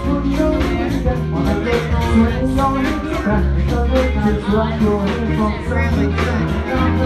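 Live go-go brass funk band playing a steady, driving beat with heavy bass.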